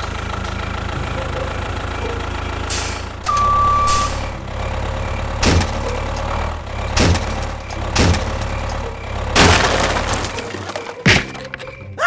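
Heavy vehicle engine running steadily, with one short beep about three seconds in, a few knocks, and a burst of hiss near ten seconds.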